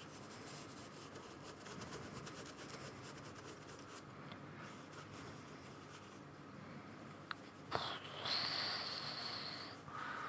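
Paintbrush rubbing and dabbing faintly on sketchbook paper, laying on a blue-and-white gouache highlight. Near the end there is a click, then a louder hissing scrape lasting about two seconds.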